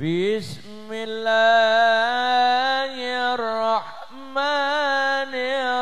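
A man singing a slow, ornamented chant into a handheld microphone. He holds long notes with a wavering pitch, with a short pause about two-thirds of the way through.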